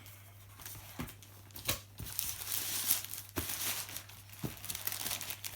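Layers of camera packaging wrap being pulled open and crinkled by hand, with a few sharp crackles as it tears.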